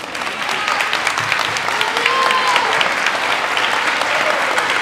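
Audience applauding: many hands clapping, swelling over the first second and then holding steady.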